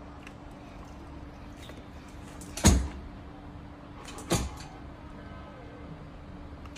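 Two sharp knocks about a second and a half apart, the first the louder, over a faint steady hum.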